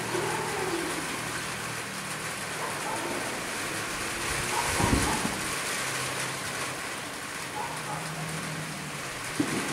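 Moderate rain falling steadily, with a short low thump about halfway through.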